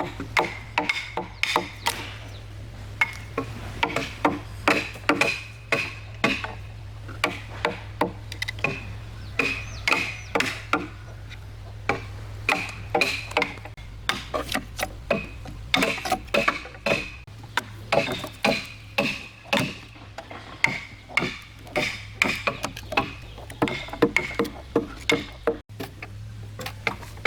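Hand tools striking timber over and over: sharp wooden knocks about two or three times a second, each with a brief ring, over a steady low hum.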